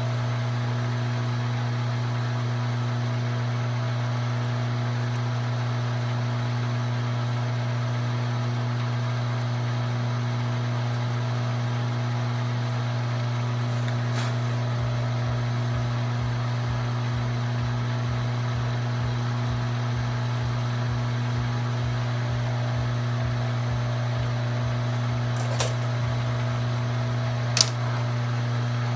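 Grizzly G0704 benchtop milling machine running with a steady hum while a drill in its chuck drills a hole pattern in a metal plate. A rapid low pulsing comes in about halfway through, and a few sharp clicks sound near the end, the loudest a little before the end.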